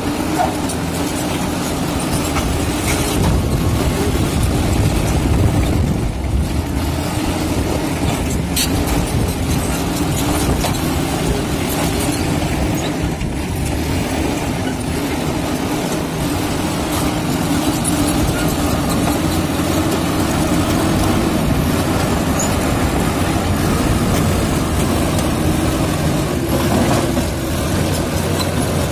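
Komatsu D85 bulldozer's diesel engine running steadily with a low rumble, broken by a few brief sharp clanks.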